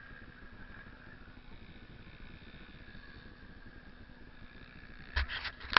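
Off-road motorcycle engine running steadily and faintly, then several loud sharp knocks near the end.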